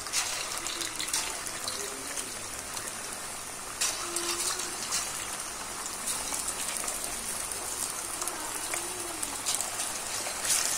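Batter-coated chicken pakodi pieces sizzling as they deep-fry in hot oil: a steady hiss with scattered crackles and pops, growing louder near the end as more pieces go into the oil.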